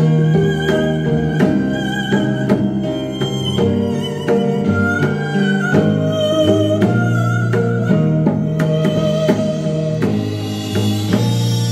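Korean traditional (gugak) chamber ensemble playing live: a sustained bowed-string melody with vibrato over regularly plucked string notes and a low bass line. A brighter, reedy wind sound joins near the end.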